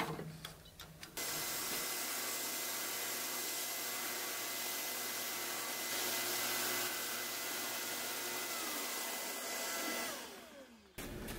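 Drill press boring a hole in a wood block with a 5/8-inch forstner bit, while a shop vacuum hose draws off the chips: a steady motor whirr under a rush of suction. It starts about a second in and winds down near the end, its pitch falling as the motors coast to a stop.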